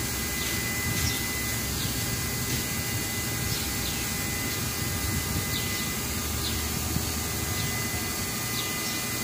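Steady drone of a running engine or machine, with a thin steady whine and faint high chirps that repeat about once a second.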